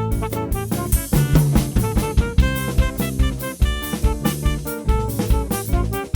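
Instrumental band of saxophone, electric guitar, bass guitar and drum kit playing, the drum kit out front with a steady kick-and-snare beat under short melody notes.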